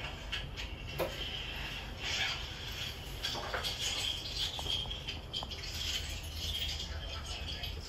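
A cat pawing under a closed door: a run of light scratches and taps of claws on the floor and door edge, over a low steady hum.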